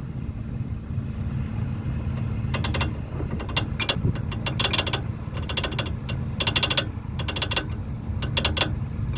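VW Golf Mk1 brake pads rattling: short bursts of metallic rattle, roughly twice a second, starting about two and a half seconds in, over the steady low rumble of the car.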